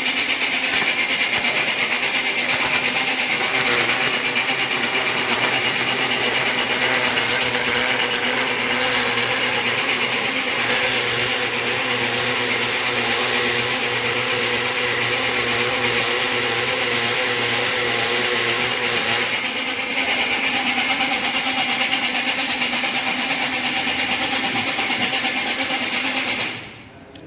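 Belt-driven multi-purpose workshop machine running on its 230 V AC motor, its spinning wheel working material with a steady whine and rasp. The sound grows harsher from about 11 to 19 seconds in, then stops shortly before the end.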